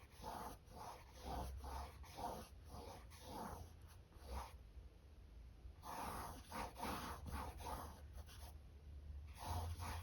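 A bristle paintbrush rubbing through acrylic paint in short, repeated strokes, about two or three a second, with a brief pause about halfway through.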